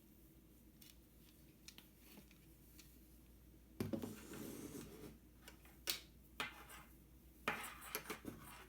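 Handling sounds from objects being moved about by hand: a stretch of rubbing and rustling about four seconds in, then a few sharp knocks and clicks, with more rubbing near the end.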